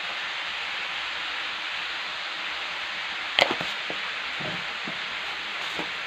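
Shredded green papaya and pork belly sizzling steadily in a frying pan. There is a sharp click a little over three seconds in, and a few soft knocks follow.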